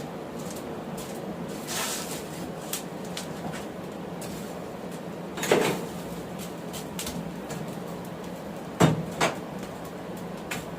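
Steady rushing of a running forge, broken by a few sharp metal knocks, the loudest about five and a half and nine seconds in, as a steel bar and tongs are handled at the fire.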